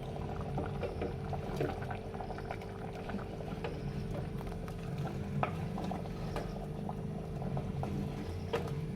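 Chicken curry bubbling in a clay pot as it is stirred with a spoon, with scattered light clicks and scrapes of the spoon against the pot over a steady low hum.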